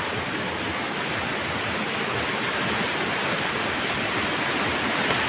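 Shallow, rocky river running over and between large boulders, a steady rush of white water.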